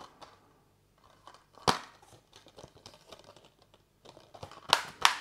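A plastic Amaray Blu-ray keep case being handled and opened. There is a sharp click about a second and a half in, light scraping of the plastic after it, and two quick clicks close together near the end.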